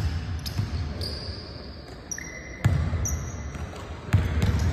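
Basketballs bouncing on a hardwood gym floor: three loud thumps, at the start, about two and a half seconds in and near the end, with short high sneaker squeaks in between.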